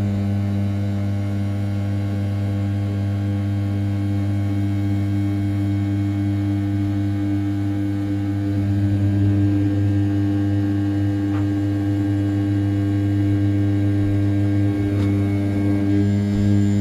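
500 W brushless spindle of an Original Mind RZ420 desktop CNC mill turning at 6000 rpm while rough-milling the outside contour of an A7075 aluminium block. It makes a loud, steady hum with a stack of overtones, with a faint tick or two from the cut.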